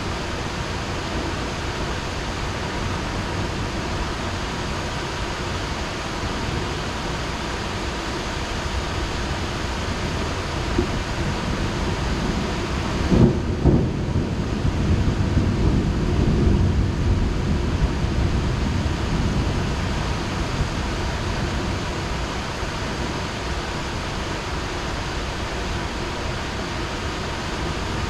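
Heavy rain falling steadily, with a thunderclap about halfway through: a sharp crack followed by a low rumble that dies away over several seconds.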